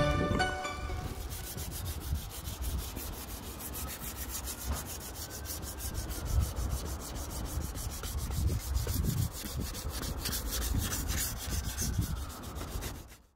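Sandpaper on a hand sanding block rubbed back and forth over the primed wheel arch of a Honda CRX, in quick, regular scratching strokes. The sanding stops just before the end.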